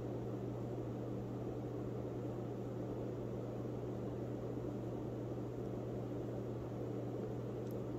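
Steady low hum with a hiss over it: constant room background noise from a running machine.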